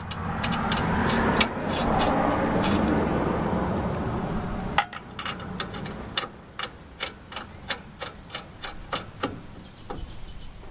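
A swelling rush of noise that cuts off about five seconds in, then a run of light, irregular metallic clicks from steel lug nuts being handled and threaded onto the wheel studs by hand.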